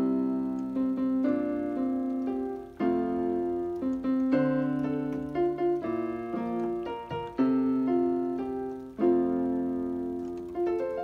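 Yamaha portable keyboard on a piano voice, both hands playing a melody with full chords struck under it. The chords change about every second and die away between strikes.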